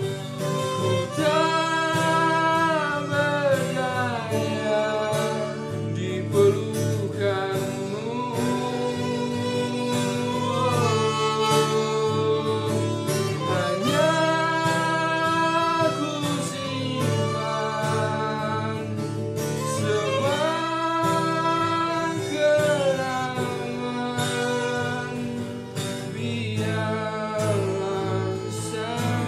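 Music: a song with a sung vocal line, its phrases gliding up and down in pitch, over continuous instrumental backing with percussion.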